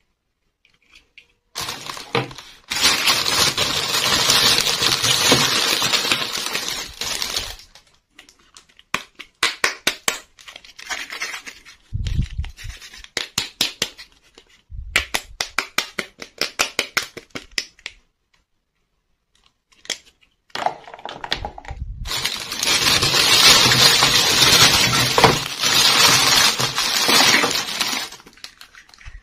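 Clear plastic wrapping crinkling and rustling under the hands in two long stretches, with small hard-plastic toy furniture pieces clicking and tapping against each other in between.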